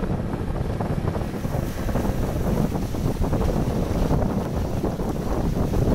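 Wind buffeting the microphone over the wash of sea water, recorded aboard a boat on open water: a steady, rumbling rush with no pauses.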